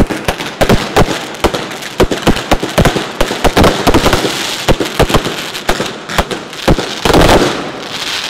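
Fireworks and firecrackers going off: a quick string of sharp bangs, several a second, over a continuous crackle, with a denser burst about seven seconds in.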